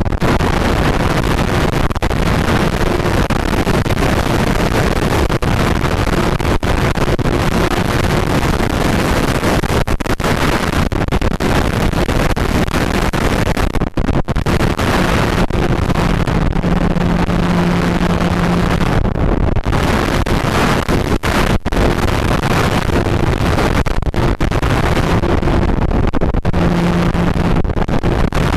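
Loud, steady rush of wind on the microphone of a camera riding on a flying RC plane, with the plane's motor and propeller humming underneath. A low hum comes up for a few seconds past the middle and again near the end.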